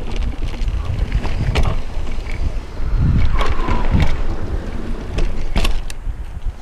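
Wind buffeting the microphone while a mountain bike rolls over a rough trail, with scattered sharp clicks and knocks from the bike.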